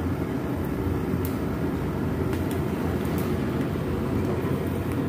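Portable gas stove burner running with a steady, low rushing sound as its flame singes a cow's foot, with a few faint clicks.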